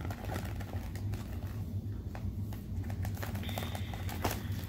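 Light handling noise of cosmetic products and packaging being sorted by hand, with a few soft clicks, over a steady low hum.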